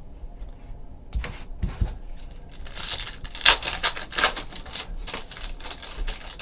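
Crinkling and rustling of a clear plastic trading-card pack wrapper handled in the hands, starting about a second in and loudest about halfway through.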